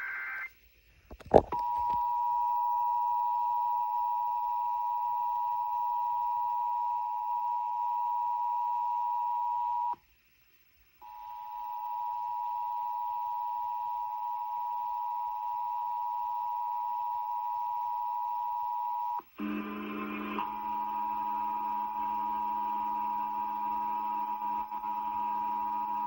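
Emergency Alert System attention signal, the steady two-tone alarm, played through a portable FM radio's speaker. A brief electronic data burst and a sharp click come first. The tone runs about eight seconds, stops dead, and after a second of silence fades back in. Near the end a short noisy burst and a lower steady hum join it.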